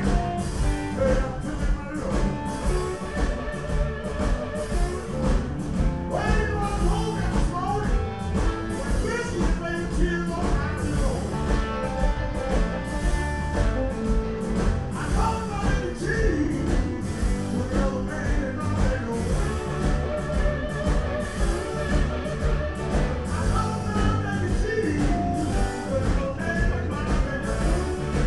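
Live blues-rock band playing through the stage PA: guitar lines with bent notes over bass and a steady drum beat.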